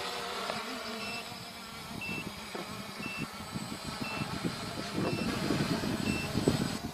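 A short, high electronic beep repeats about once a second over a faint, fading multirotor motor hum. From about halfway in, rough thumps and rustling grow louder.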